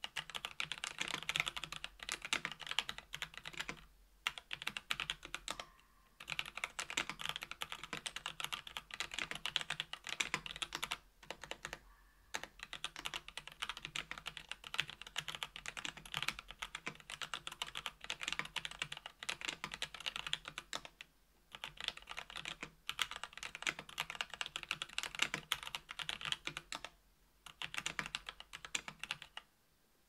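Continuous fast typing on a mechanical keyboard fitted with stock NovelKeys x Kailh BOX Heavy Dark Yellow linear switches (70g/80g), in an aluminum KBDfans Tofu 65% case with an aluminum plate and GMK keycaps. The keystrokes come in dense runs broken by several short pauses.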